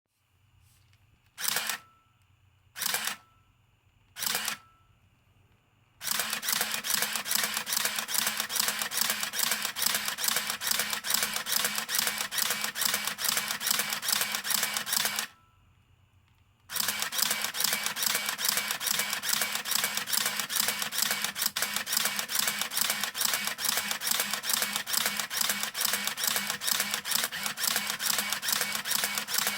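Minolta α-7000 film SLR firing: three single shutter releases, each with its built-in motor winding on, then two long runs of rapid continuous shooting, with a short pause between them.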